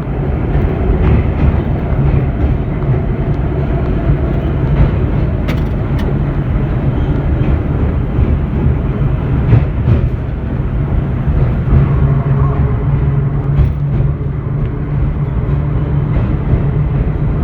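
Vintage IRT Low-Voltage subway car running along the line, heard from on board: a loud, steady running noise with a few sharp clicks from the wheels and track.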